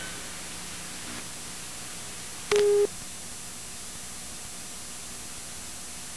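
Steady hiss with a faint hum, and a single short beep about two and a half seconds in.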